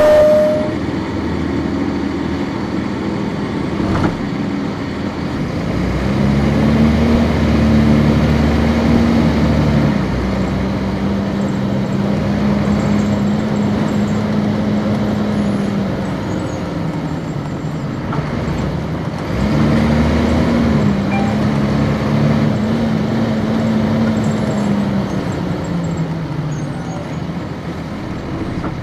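Cummins ISC straight-six diesel of a 1999 NovaBus RTS transit bus heard from on board, pulling away twice. The engine pitch rises and holds, drops once at an upshift of the ZF automatic transmission, then falls away as the bus slows, with steady road noise throughout.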